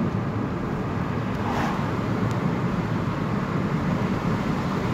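Steady road and engine noise of a moving car, heard from inside the cabin: an even low rumble.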